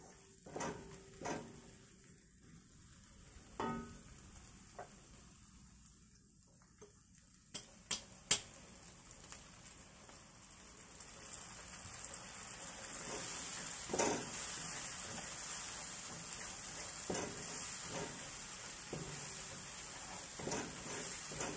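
Wooden spatula scraping and knocking against a stone-coated wok while chilli spice paste fries in oil. There are a few sharp knocks about eight seconds in, then the sizzle grows louder and holds steady.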